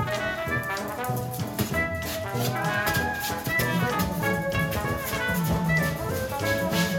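Background music: an upbeat jazzy brass tune with trombone-like horns over a steady drum beat.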